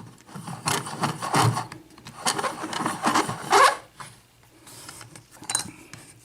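Scraping, rubbing handling noise of a padlock and metal lock-picking tools being handled, loudest in the first four seconds, then a few quieter scrapes.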